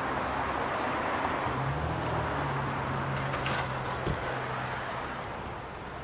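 Road traffic: a car passing on the street, a steady rush of tyre noise with a low engine hum in the middle seconds. A single sharp click comes about four seconds in.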